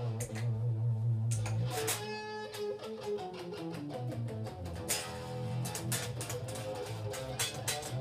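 Electric guitar played through a Line 6 POD HD500X multi-effects processor, picking a fast lead solo line, with a single note held and sustained about two seconds in, over a steady low bass note.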